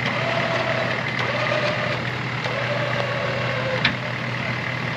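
Off-road vehicle winch motor whining steadily as it pulls a loaded truck out under heavy load, over an idling engine. A short click comes about four seconds in.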